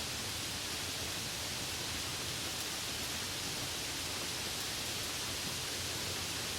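Steady rain falling: an even, unbroken hiss with no single drops or thunder standing out.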